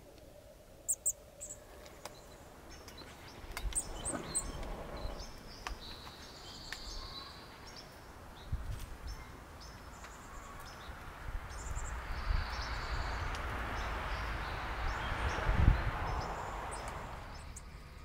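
Small songbirds giving short, high chirps and brief buzzy calls, scattered through. In the second half a broad rush of noise builds, peaks and fades near the end.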